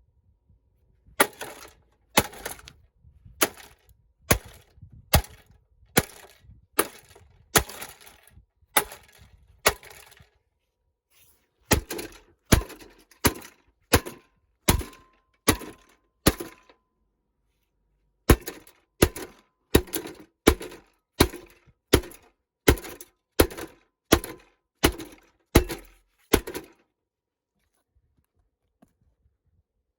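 A ventilation fan being smashed: sharp, ringing blows struck a little faster than once a second, in three runs with short pauses between, stopping a few seconds before the end.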